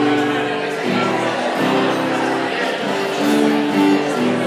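Live band music with acoustic guitar, carrying a melody of steady held notes that change about every half second to a second.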